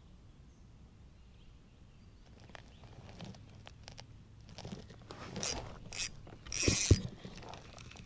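Spinning reel being cranked to bring in a lure, with scattered mechanical clicks and handling knocks that build after a couple of seconds. Near the end comes a brief louder burst of noise with two dull thumps.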